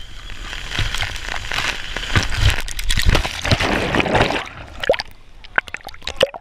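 Water splashing and sloshing for about four seconds, then dying down to scattered drips and gurgling plinks.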